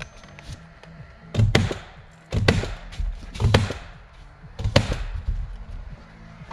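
Nailing into wooden framing and sheathing: several sharp knocks with a heavy thump, some in quick pairs, spaced unevenly.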